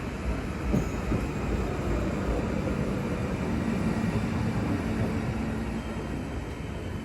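A train running through the station: a steady rumble of wheels on rail, with a faint hum joining over the middle seconds and the sound easing off slightly near the end.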